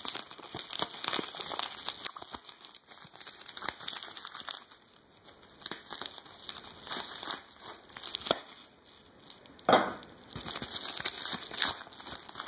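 Paper packing slip rustling and crinkling as it is handled, in an irregular crackle of small rustles, with a louder crinkle about ten seconds in.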